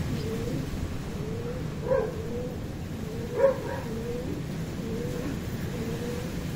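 Wind rushing on the microphone, with a short animal call repeating every half second or so and two louder calls about two and three and a half seconds in.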